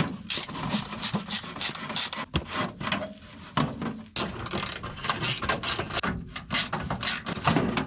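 Ratchet wrench clicking in quick, irregular runs of strokes as fasteners are worked loose to take off an underbody heat shield.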